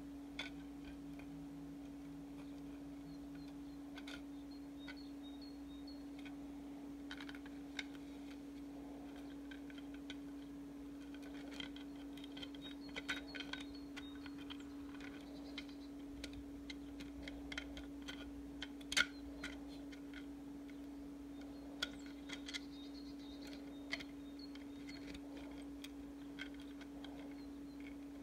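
Scattered small plastic clicks and ticks as a 3D-printed maze sphere and its ring are turned in the hands, the parts knocking and rubbing against each other, with a sharper click about two-thirds of the way in. A steady low hum runs underneath.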